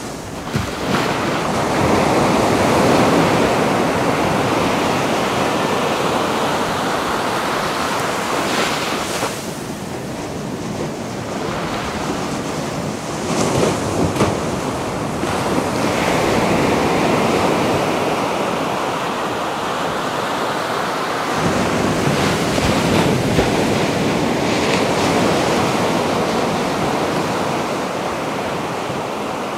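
Ocean waves breaking and washing on a beach, a steady rush of surf that swells with each set and eases between them.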